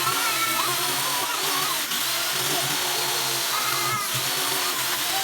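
An electric power tool runs steadily, its pitch wavering up and down as it works.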